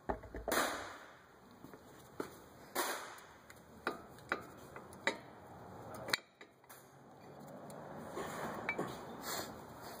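Sharp metal clicks and clacks of new front brake pads being fitted and seated into the caliper bracket's spring clips, a handful of separate knocks spread a second or so apart.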